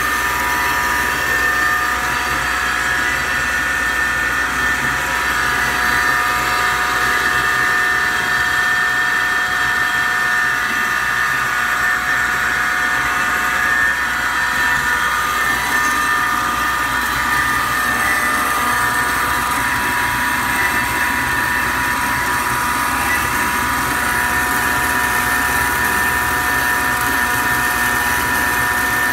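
DoAll C-305A automatic horizontal band saw running: a steady machine hum with a set of steady high whining tones and no breaks.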